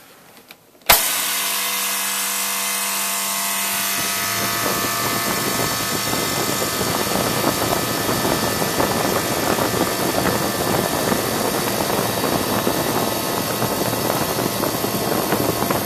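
Capacitor-run electric fan motor switched on with a sharp click about a second in. A steady hum comes first, then a rush of air builds over the next few seconds as the fan comes up to speed, and it runs on steadily.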